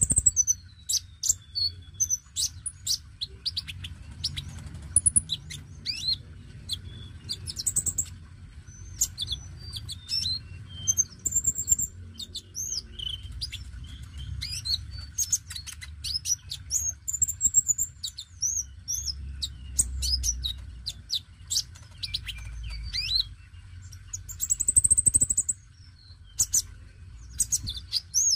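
Caged male sunbird (konin) singing: a busy run of high, thin chirps, sharp ticks and short twittering trills, with a dense burst of song near the end.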